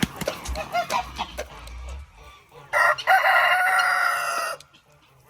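A rooster crows once, one long call of about two seconds, about halfway through, after a few short clucks and some rustling.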